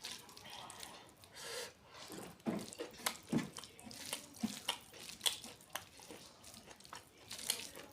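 Close-up wet eating sounds: irregular lip-smacking and chewing as someone eats a curry-and-rice meal, with short sticky smacks every half second or so.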